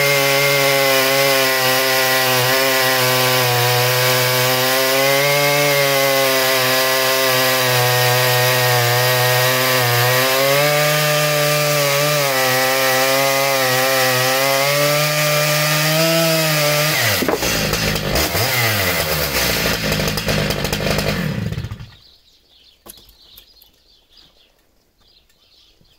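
Stihl MS 881 two-stroke chainsaw with a long 120 cm bar running at full throttle, cutting through a large log. About 17 seconds in the engine comes off load and its pitch falls and wavers as it winds down, and about 22 seconds in the engine stops, leaving only a few faint knocks.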